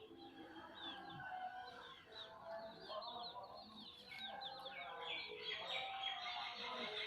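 Hens clucking among a busy chorus of small birds chirping, the chirps thickest over the last couple of seconds.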